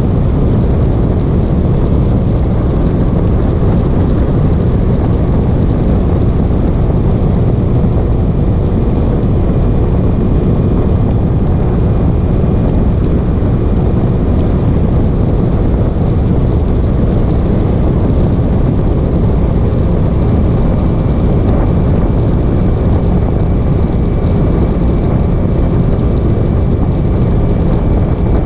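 Motorcycle cruising at a steady road speed: loud, even wind rush on the microphone with a steady engine drone underneath.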